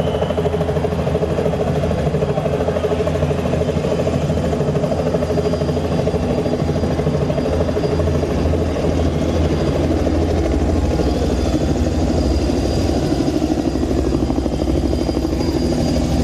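Recorded helicopter sound effect played through a concert PA: a steady rotor chop and engine drone, with low sustained tones beneath it.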